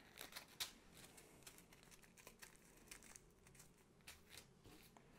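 Faint crinkling and light clicks of small resealable plastic bags of diamond-painting drills being pressed shut and handled.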